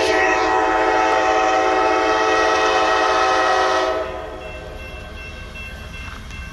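CSX diesel locomotive's air horn sounding one long, steady multi-note chord as the train comes up to the grade crossing. The horn cuts off about four seconds in.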